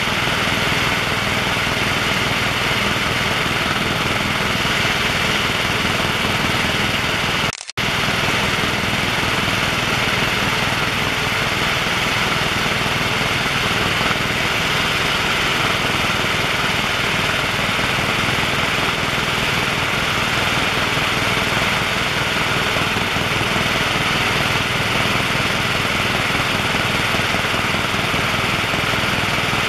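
Loud, steady cabin noise of a HeliJet passenger helicopter in flight: engine and rotor noise heard from inside the cabin, a dense rushing sound with a faint steady whine on top. The sound cuts out briefly about seven and a half seconds in.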